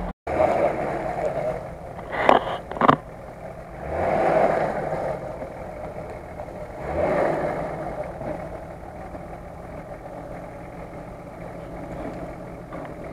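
Nissan Patrol off-road vehicle's engine running steadily while stuck in mud, swelling louder twice. There are two sharp knocks about two to three seconds in.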